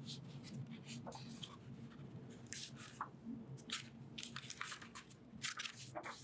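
Paper pages of a new book being handled and turned: short, crisp rustles and flicks of paper, a dozen or so in quick succession.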